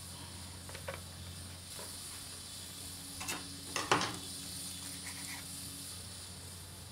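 Quiet room tone with a low steady hum, broken by a few soft knocks: two faint ones about a second in and two louder ones a little after three and four seconds.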